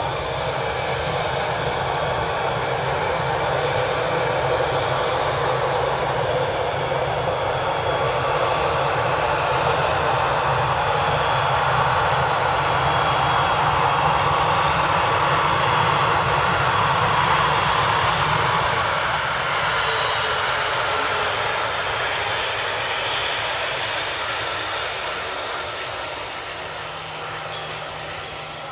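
Jet engines of a Batik Air airliner running as it rolls along the runway: a steady rushing noise with a thin high whine on top, loudest about halfway through and fading over the last several seconds as the aircraft moves away.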